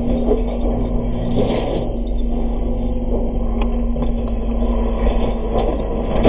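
Jeep TJ rock crawler's engine running loud and steady as the Jeep rolls over onto its roof on slickrock, with a few sharp knocks of the body striking the rock.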